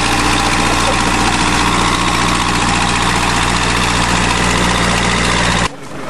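Backhoe loader tractor's engine running steadily close by. It cuts off abruptly near the end.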